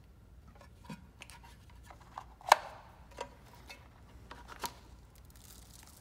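Scattered light clicks and knocks as hands handle the bus's charging-receptacle housing and its orange high-voltage cables. The sharpest click comes about two and a half seconds in, with smaller ones around it.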